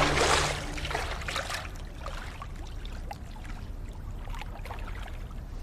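Water splashing as someone swims through a pool: two loud splashes in the first second and a half, then softer trickles and drips.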